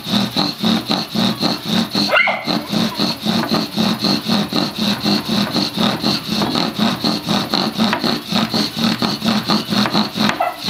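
Bow drill at work: the wooden spindle squeaks and grinds in the notch of a wooden fireboard as the bow is sawn back and forth. The sound pulses evenly at about three beats a second, one beat for each change of stroke. This is the friction that heats the wood to make an ember.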